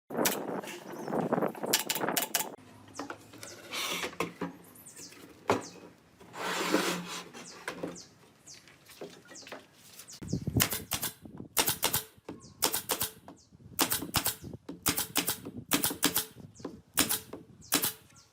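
Workshop sounds of wood being worked: mixed knocks and scraping, then a run of sharp taps, about two a second, in the second half.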